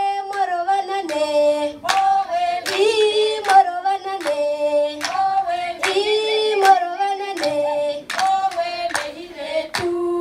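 Voices singing a Herero song: a melody of held notes stepping up and down, with scattered hand claps.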